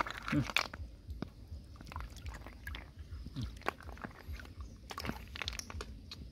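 Freshwater snail shells clicking and knocking against each other as they are scooped up by hand, with light splashing of hands in shallow water.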